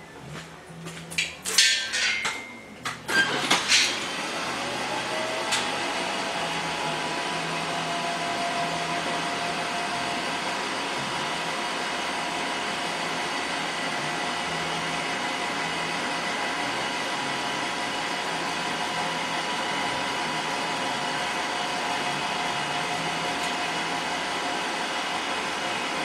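A few knocks and clanks of metal tooling being handled. About four seconds in, the SIP Hydroptic 8 jig borer's motor starts, its whine rising briefly as it comes up to speed, then runs steadily.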